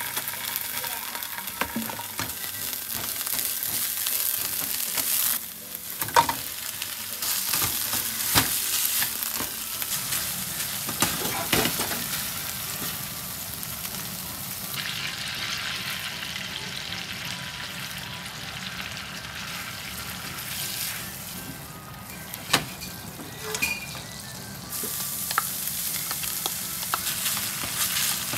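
Food sizzling in a frying pan while being stirred, with scattered sharp clicks and knocks of a utensil against the pan; one knock, near the end, is louder than the rest.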